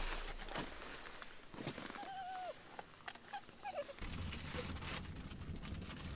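Wood fire crackling and popping in a small sheet-metal wood stove, with a low rumble of flame from about four seconds in. A brief high whine and a few short chirps come about two seconds in.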